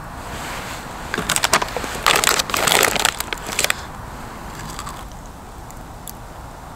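A foil snack bag crinkling and rustling for a couple of seconds as chips are taken out of it, then quieter.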